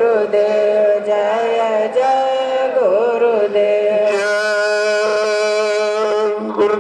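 Devotional chanting of a prayer in long held notes, with a few bends in pitch, over a steady low drone.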